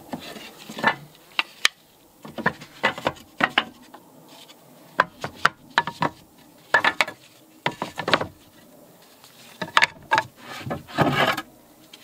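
Loose wooden boards being shifted and laid into a wooden horizontal beehive box by gloved hands: irregular wooden knocks, clatters and scrapes, with short quiet gaps between.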